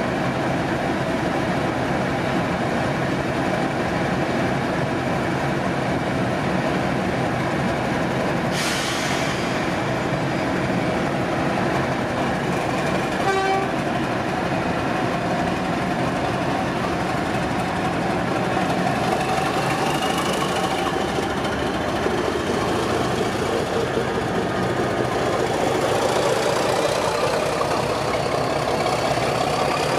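Diesel locomotive engine running steadily, with a sudden short hiss about 8 seconds in and a brief horn toot about 13 seconds in. From about 19 seconds in, a whine rises steadily in pitch as the engine works harder.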